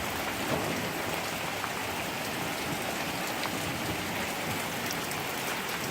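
Heavy rain coming down steadily in a thunderstorm downpour: a dense, even hiss with a few scattered drop ticks.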